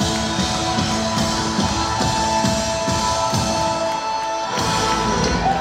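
Live rock band playing the final bars of a song, with electric guitar and keyboards over drum kit. Held notes ring over the drums until they thin out near the end.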